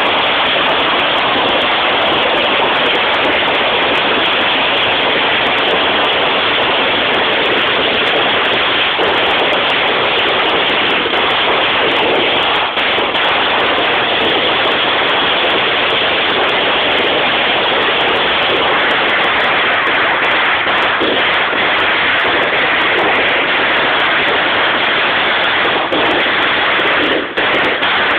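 A long string of firecrackers going off in a loud, unbroken rapid crackle of countless small pops, sputtering into gaps as it runs out near the end.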